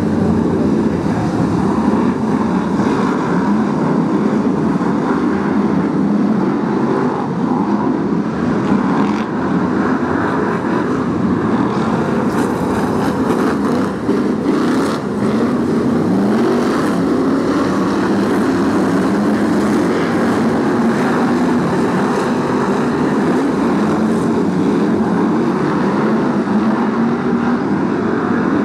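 A pack of BriSCA F1 stock cars racing on a shale oval, their V8 engines running loudly together as one dense, continuous engine noise. About halfway through, one engine note climbs as a car accelerates.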